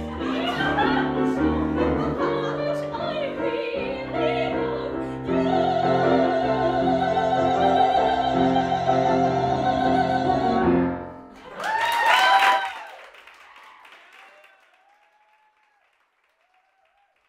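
A soprano sings a musical-theatre song with grand piano accompaniment. She holds one long note with vibrato, then gives a short loud final note about twelve seconds in. The sound then dies away to near silence.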